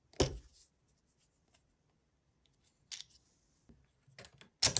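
Sharp mechanical clicks from a GRAVmag magazine and Crosman steel breech being handled: one click just after the start, another about three seconds in, and a quick run of louder clicks near the end.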